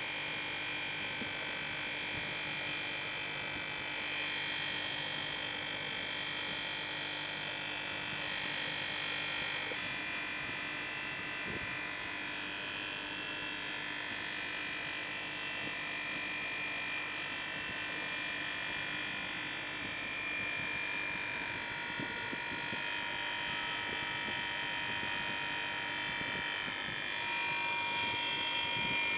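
Copeland hermetic refrigeration compressor running steadily: a continuous hum with a steady high-pitched whine, at an even level.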